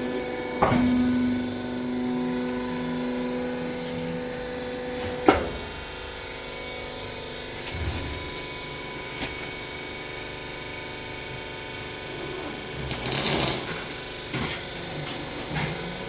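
Small rag baler's motor running with a steady hum, which stops about four and a half seconds in and is followed by a sharp clank. Later comes a steady low background, with plastic film rustling and a few clicks as the bale is wrapped and sealed.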